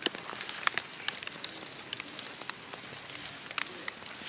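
Rain falling, with raindrops striking a nearby surface as irregular light ticks over a steady hiss.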